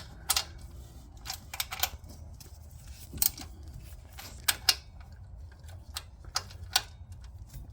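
Irregular sharp metallic clicks and clinks of hand tools working the water pump bolts, over a low steady hum.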